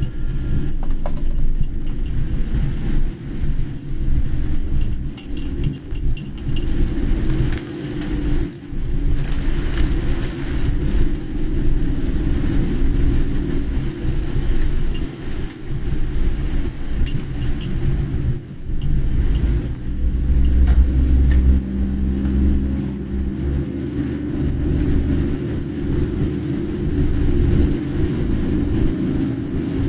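Car road noise while driving: a steady low rumble of engine and tyres, swelling louder about twenty seconds in, with faint scattered rattles and clicks over it.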